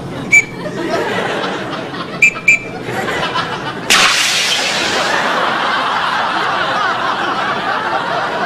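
Three short, high peeps, one and then a quick pair about two seconds later, from a small whistle, followed about four seconds in by a studio audience laughing.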